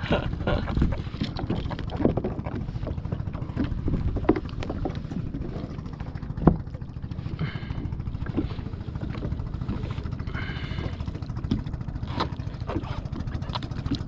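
Steady low rumble of wind on the microphone and water lapping against a plastic kayak hull, with scattered clicks and knocks of hands, line and flapping fish on the hull; one sharp knock stands out about six and a half seconds in. Two brief high calls come about three seconds apart near the middle.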